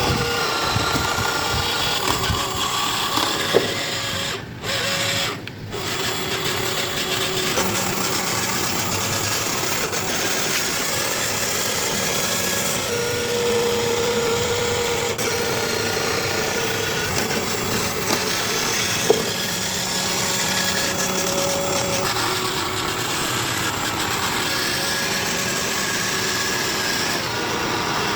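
A handheld power tool running steadily during toy restoration work, cutting out briefly twice about four and a half seconds in.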